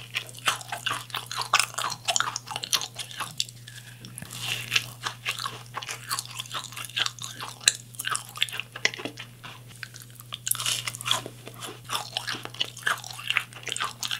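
Close-miked chewing: a person biting into and chewing crunchy food, with a dense, irregular run of crisp crunches and mouth clicks.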